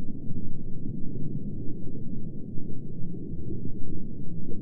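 Low, muffled rumbling ambience, a sound-design bed with all its weight in the bass and a loudness that wavers unevenly, like a heartbeat-and-thunder throb heard through water.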